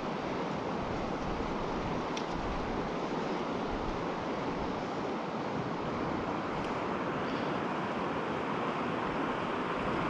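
Fast-flowing mountain river rushing steadily, an even wash of moving water.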